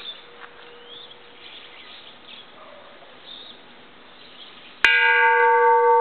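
Antique bronze Japanese temple bell struck once near the end with a striker, giving a sharp hit that rings on with a steady hum and several clear higher overtones. Before the strike, the faint tail of an earlier ring hums on.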